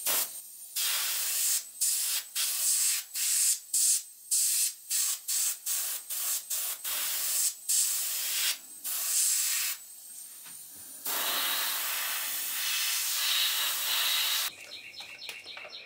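Airbrush spraying paint: a high hiss in a quick series of short bursts as the trigger is pulsed. After a brief pause it gives one longer steady spray of about three seconds, then stops shortly before the end.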